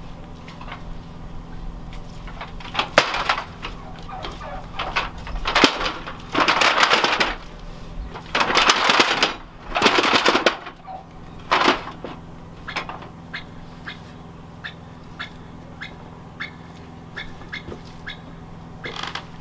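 Aluminium step ladder being handled and stood against a wall: several loud scraping, rattling bursts about six to twelve seconds in, then a run of light ticks.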